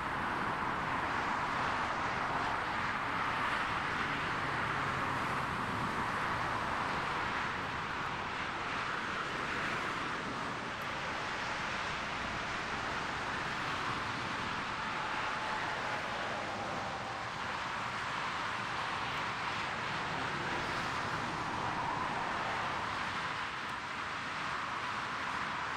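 Airbus A330-200 jet engines heard as a steady rushing noise, with no breaks, from the landing roll through taxiing.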